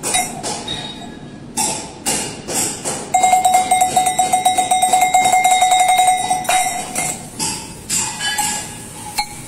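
Metal sheep bells being handled and shaken by hand: scattered clinks and knocks, then from about three seconds in one bell is shaken fast, its clapper striking many times a second on a single ringing note for about three seconds before it stops abruptly.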